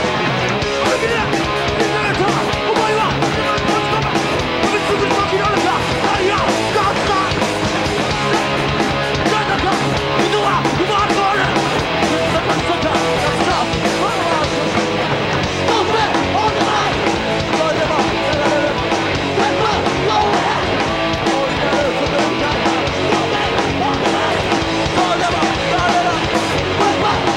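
Live hardcore punk band playing loudly and without a break: electric guitars, bass and drums.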